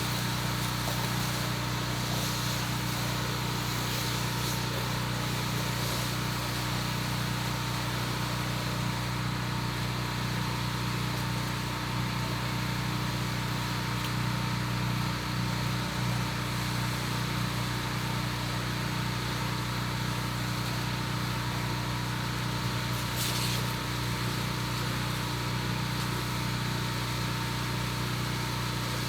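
Pressure washer running steadily: a constant engine hum with an even hiss over it.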